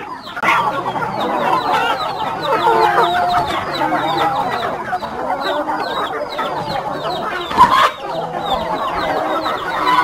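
A large flock of free-range chickens clucking all together, with many short high peeps throughout and one louder call about three-quarters of the way through.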